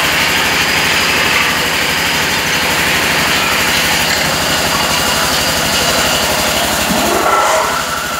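Belt-driven metal-spinning lathe running with a loud, steady, fast low thrum as an aluminium bucket body turns on it and is pressed into shape with a hand-held bar. There is a brief rising squeal about seven seconds in.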